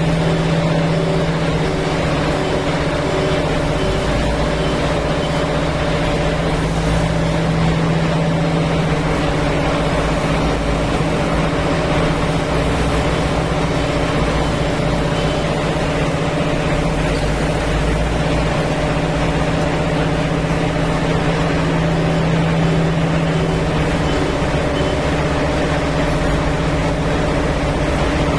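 Kirloskar diesel engine of a JCB 3DX backhoe loader running steadily under work, a continuous low engine note with even overtones.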